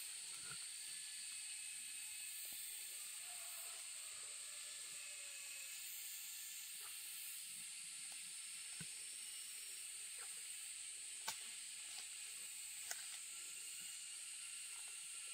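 A steady high-pitched hiss, with two faint sharp clicks near the end.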